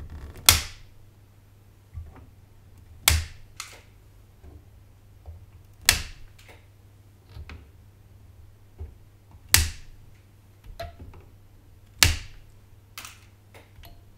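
Flush side cutters snipping off the protruding leads of newly soldered capacitors on the underside of a motherboard: a sharp snap every two and a half to three and a half seconds, five in all, some followed by a smaller second click.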